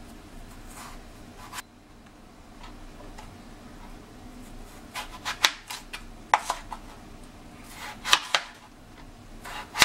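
A kitchen knife slices through a peeled raw potato and knocks on a plastic cutting board. The first half has a couple of soft strokes; the second half has sharp clicks, several in quick pairs and threes.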